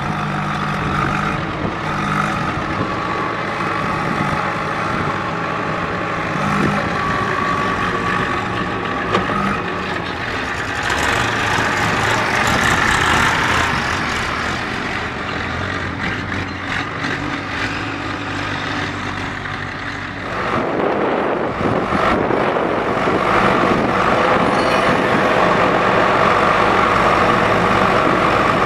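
Diesel engines of a Massey Ferguson 1035 DI tractor and a JCB 3DX backhoe loader running at work. About twenty seconds in, a louder, denser engine sound comes in and holds.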